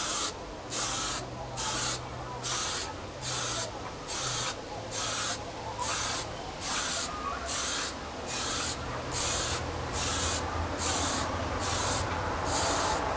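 Aerosol spray-paint can hissing in short, evenly repeated bursts, a little more than one a second, as paint is laid on in quick passes.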